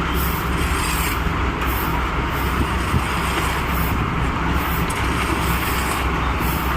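Kobelco SK140 excavator's diesel engine running steadily under a wash of machine noise, with a light knock about three seconds in.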